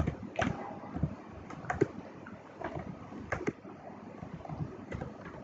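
Typing on a computer keyboard: a run of uneven key clicks, some in quick pairs, with short pauses between words.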